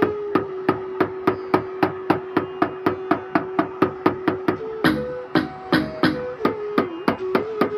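Electronic percussion: an even run of sharp hits, about three to four a second, over a held synth tone that steps up in pitch briefly around the middle.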